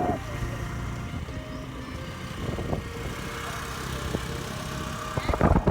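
Vehicle on the move: a steady low rumble of engine and road noise.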